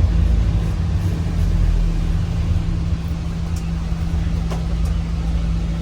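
Motor vehicle engine running steadily, a constant low rumble with a steady hum.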